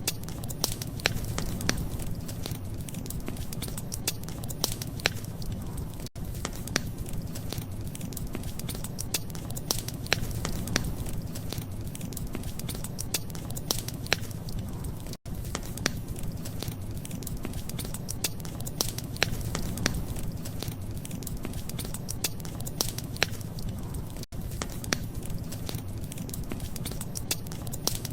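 Wood fire crackling, with frequent sharp pops and snaps over a steady low rumble. The sound cuts out for an instant three times, about a third of the way in, halfway and near the end.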